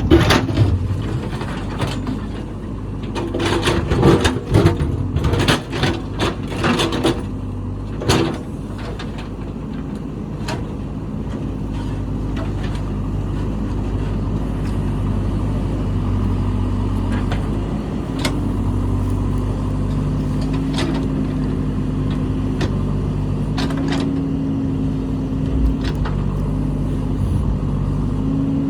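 Heavy construction machine's diesel engine running, with a run of sharp metallic clanks and knocks in the first eight seconds or so. After that the engine runs on steadily, its note rising and falling slightly.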